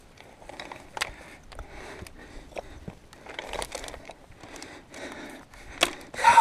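A climber's hard breathing over scattered clinks of a steel safety chain and scrapes and knocks of loose rock. Near the end comes a sharp clank of the chain as it is gripped.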